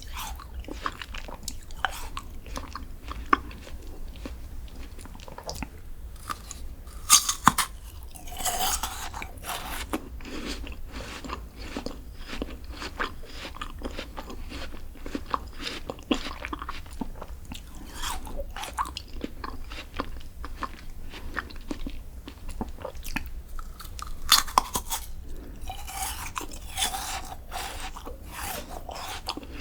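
Close-miked eating of a crunchy dessert. Sharp bites come about seven seconds in and again near twenty-four seconds, each followed by a few seconds of dense crunching, with steady chewing clicks in between.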